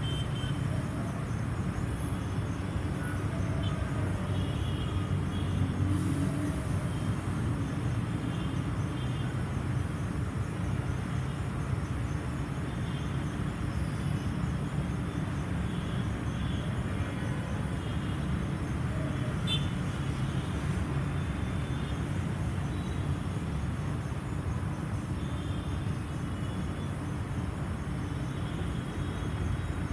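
LG air conditioner outdoor unit running, its fan blowing steadily over a constant low hum.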